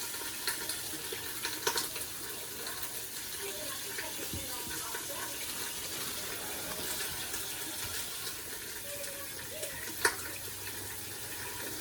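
Kitchen tap running steadily while potatoes are washed under it, with a few light knocks and a sharp click about ten seconds in.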